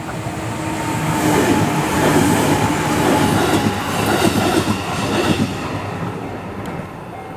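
A JR Joetsu Line train passing over a level crossing, its wheel-on-rail noise swelling to a peak a couple of seconds in and fading toward the end. The crossing's warning bell rings steadily with even, repeated dings underneath.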